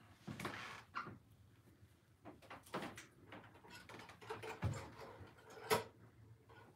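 Faint, scattered light taps and clicks of a stir stick knocking against a glass wine glass while resin is worked inside it. A sharper knock comes near the end.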